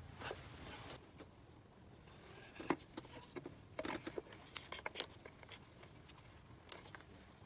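Faint handling noises as plastic ignition coils are pushed by hand into the spark plug tubes of a V6 engine: a brief rustle of fabric, then scattered light clicks and knocks as the coils seat.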